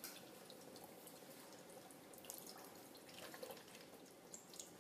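Chicken bone broth pouring from a carton into an Instant Pot: a faint trickle and splash of liquid, with a few small drips and ticks.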